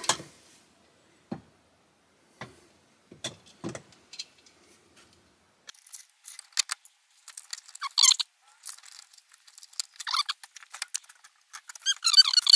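Wire leads of a Midnite Solar SPD300 surge protector handled and pulled back through the knockout of a metal combiner box. Scattered light clicks come first, then about halfway in, squeaky rubbing and scraping of the wire insulation.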